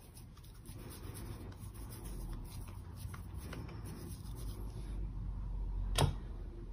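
Bare hands pressing and rolling soft mashed-potato mixture into a kebab shape, a faint soft rubbing with light ticks. A single sharp click near the end.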